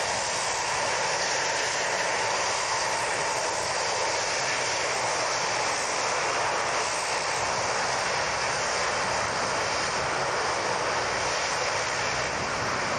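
Lockheed C-130 Hercules transport's four turboprop engines running on the ground, a loud, steady, unbroken engine noise.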